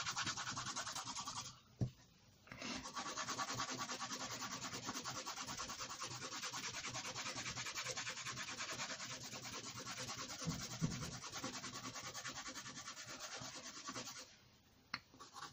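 Pencil scribbling rapidly back and forth on a sheet of paper, shading a dense patch of strokes, with a short break about two seconds in and another near the end.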